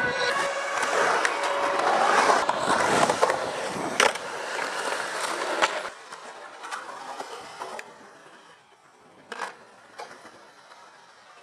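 Skateboard wheels rolling over concrete skatepark ramps, with a few sharp knocks from the board. The rolling is loud for about the first six seconds, then turns faint, with two more knocks near the end.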